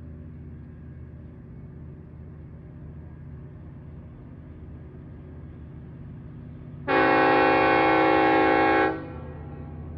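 Nathan K5LLA five-chime air horn on an LIRR DE30AC diesel locomotive, sounding one loud, steady chord for about two seconds, starting about seven seconds in and cutting off cleanly.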